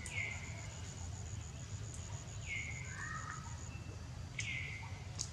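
Three short high-pitched animal calls about two seconds apart, each sliding down in pitch and then levelling off. Over the first two-thirds a fast, steady high ticking runs at about six a second, then stops.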